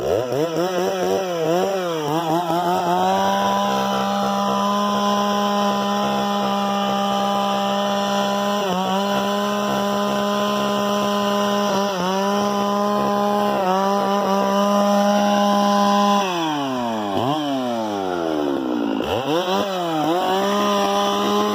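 Chainsaw engine revving up and running at high, steady speed, with a few short dips in pitch. About three-quarters of the way through it slows right down, then revs back up near the end.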